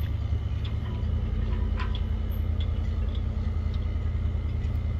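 A car's engine and road noise heard from inside the car: a steady low rumble with scattered faint high ticks.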